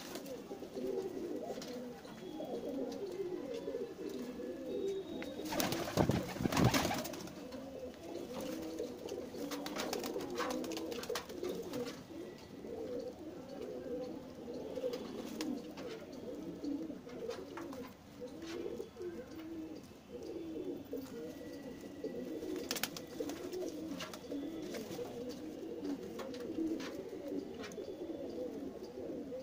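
A flock of domestic pigeons cooing steadily, many low, wavering coos overlapping. About six seconds in there is a brief loud rustle, with a few short clicks and flutters later.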